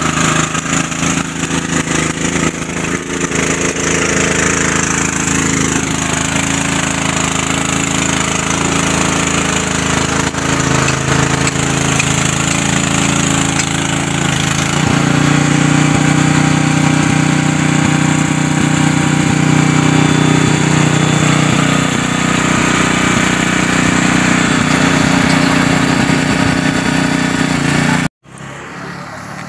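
Small portable generator for arc welding, its engine running steadily under load. About halfway through its note steps to a different pitch and gets a little louder, and near the end the sound cuts off abruptly.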